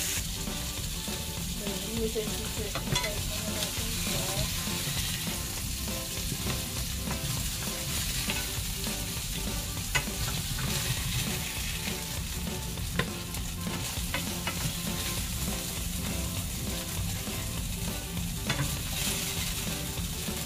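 Pork spare ribs sizzling in hot oil in a non-stick frying pan, fried golden brown, while a wooden spatula and chopsticks stir and lift them out. A few sharp clicks of the utensils come through the steady sizzle.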